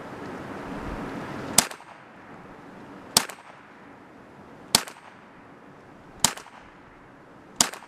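ISSC MSR MK-22 semi-automatic .22LR rifle firing five single shots, about one and a half seconds apart.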